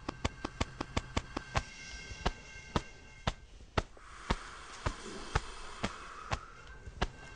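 Sharp tapping steps, two to four a second, as footstep sounds for the running toy penguins, over a faint steady hum. A hiss swells about four seconds in and fades out again about two seconds later.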